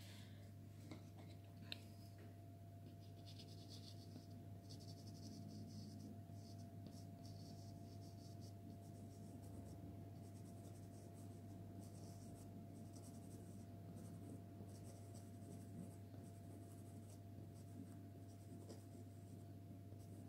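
Soft pastel stick scraping and rubbing in short, repeated strokes on sanded pastel card, faint, over a low steady hum.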